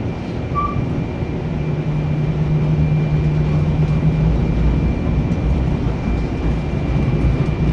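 Steady rumble and hum of a light rail train running, heard from inside the car, with a thin steady whine above it.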